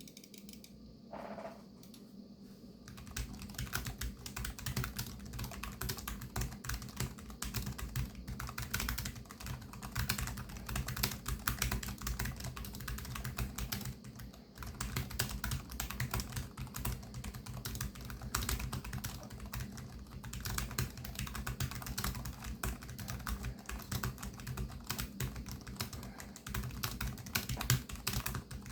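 Typing on a Cougar Vantar AX scissor-switch (pantograph) gaming keyboard: fast, continuous key clicks. It starts sparse, becomes steady and dense about three seconds in, and pauses briefly around halfway.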